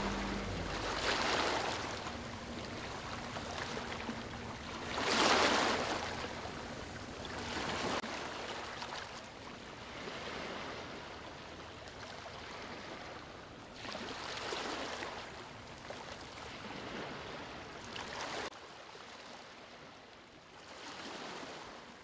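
Sea waves breaking and washing up a shore, coming in slow swells every few seconds, the loudest about five seconds in, growing fainter near the end.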